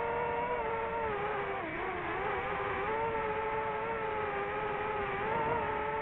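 DJI FPV drone's motors and propellers whirring in flight, a steady pitched hum that dips in pitch about two seconds in and swells back as the throttle changes.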